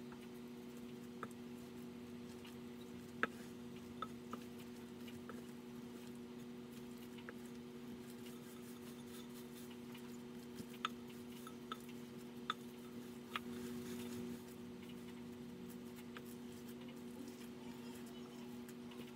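Hands kneading soft bread dough in a glass bowl: faint squishing with a scattered handful of light clicks against the glass, over a steady low hum.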